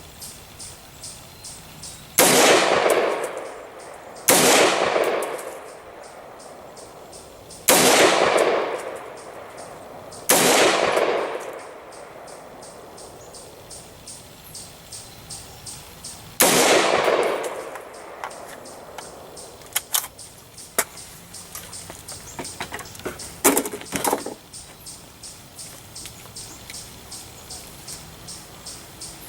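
AR-15 pistol with an 8.5-inch barrel and bird-cage flash hider fired five single shots at irregular intervals, each crack trailing off in a long echo. Several sharp metallic clicks and clanks follow in the second half.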